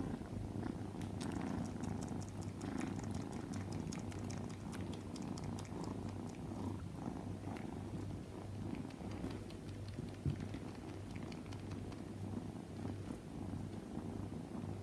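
A young tabby kitten purring steadily, a low rhythmic rumble, while suckling on a fluffy toy, with many faint clicks from the suckling over it and one slightly louder tick about ten seconds in.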